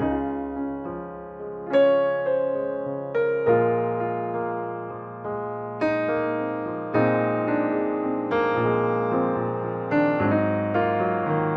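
Background piano music: slow chords and notes struck about once a second, each left to fade.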